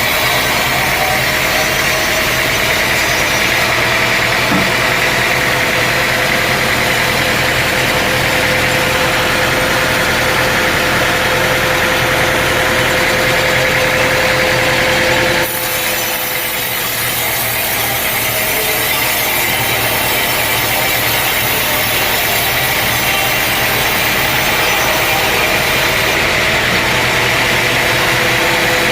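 Sawmill running steadily: an engine drone with a steady whine, and a blade cutting through wood. The sound changes abruptly about halfway through.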